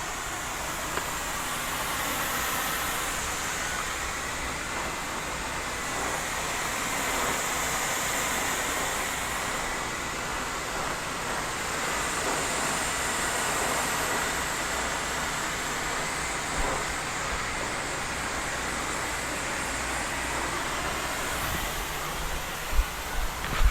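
Water spraying steadily from a soft-wash hose, a constant hiss with a motor running underneath.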